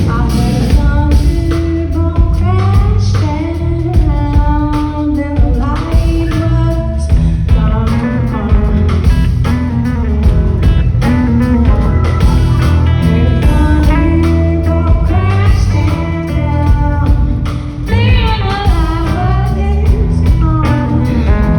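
Live blues-rock band playing loudly: electric guitar and singing over drums and bass.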